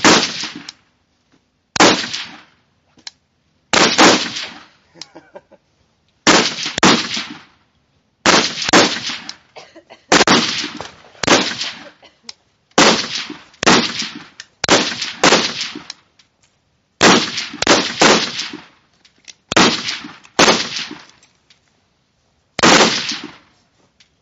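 Semi-automatic rifle fire from several shooters during a prone rapid-fire string: sharp, loud shots at uneven spacing, often two or three within a second, each with a short fading echo.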